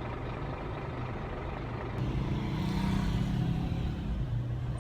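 Road traffic: vehicle engines running with a steady low rumble, the hum growing a little louder about two seconds in.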